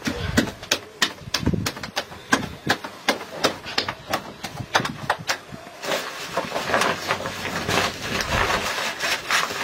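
Flatbread dough slapped from hand to hand as it is stretched thin for the tandoor, a quick, uneven run of sharp slaps. From about six seconds in, a rustling hiss joins the slaps.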